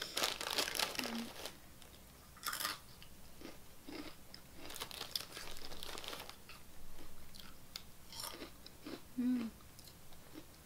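A Flamin' Hot Cheetos bag crinkles as a hand goes into it. Then come crunching and chewing of the crunchy Cheetos close to the microphone, in irregular crisp bites.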